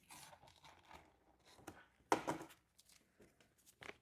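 Paper rustling and crinkling as a carburetor rebuild kit's instruction sheet is handled and unfolded, with one sharper crackle about two seconds in.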